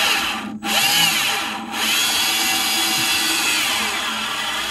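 Milwaukee M18 cordless drill driving a fastener into the wooden workbench, the motor running under a held trigger, cutting out for a moment about half a second in and easing off briefly around a second and a half in before running steadily on.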